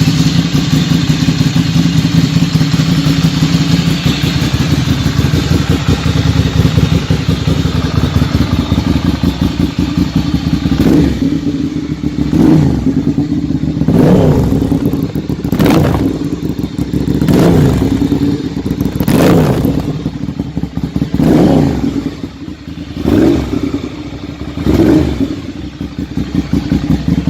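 Ducati Monster 795's air-cooled L-twin engine idling steadily, then blipped about nine times in a row from about ten seconds in, each rev rising and dropping back, before settling back to idle near the end.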